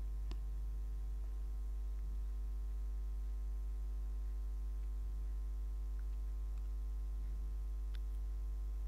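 Steady electrical mains hum with a stack of higher overtones, with two faint clicks, one near the start and one near the end.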